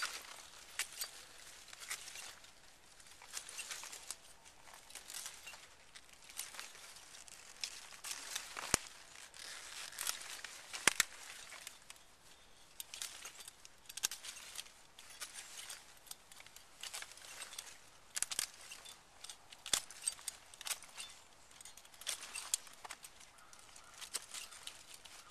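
Hand pruning shears snipping Brussels sprouts off the stalk one by one: irregular crisp snips and clicks amid the rustle of the plant's leaves being handled.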